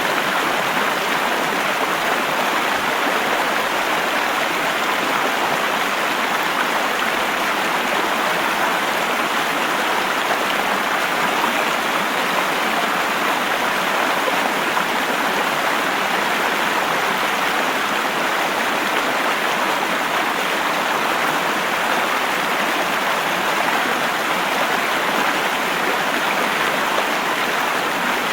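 Steady rushing of running water, an even wash of sound with no change in level throughout.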